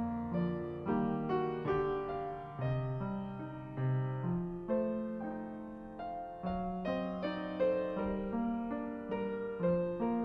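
Background piano music: a slow, gentle piece of struck notes over a bass line, each note sounding and then fading away.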